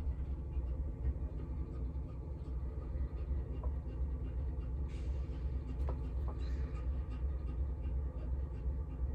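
A steady low hum runs throughout, with a few faint clicks.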